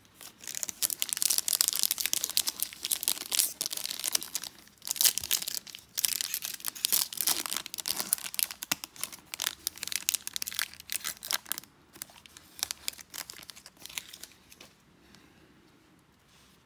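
Foil wrapper of a baseball card pack being torn open and crinkled, a dense crackling that runs for about eleven seconds. Near the end it gives way to sparser, lighter ticks as the cards are handled.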